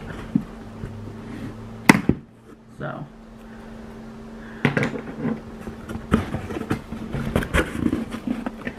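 Cardboard shipping box being opened by hand: a few knocks with a sharp one about two seconds in, then from about five seconds a busy run of cardboard flaps and packing rustling and scraping, with more knocks.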